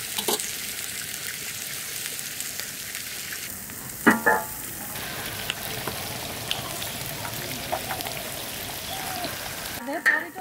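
Charcoal fire hissing and crackling under a whole great snakehead fish roasting on a wire grill, with small pops scattered through. A brief pitched call about four seconds in.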